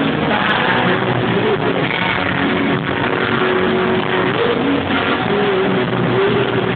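Live rock band playing a song at full volume, recorded on a phone with poor, muddy sound.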